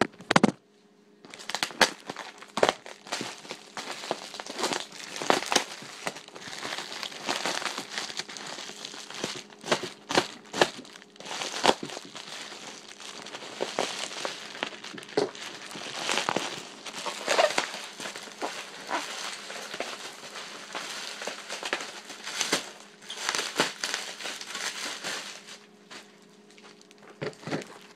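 Plastic packing wrap being crinkled and rustled by hand in irregular bursts as a package is unwrapped, dying down near the end.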